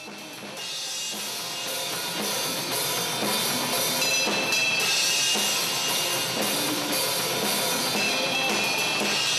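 Drum kit being played, drums and cymbals together, with the cymbals ringing throughout; it fades in over about the first second.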